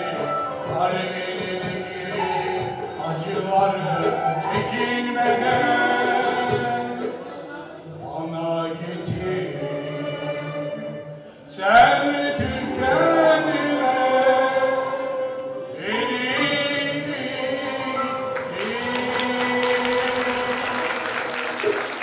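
Choir singing a Turkish classical song with instrumental accompaniment. In the last few seconds applause breaks out over the held final note.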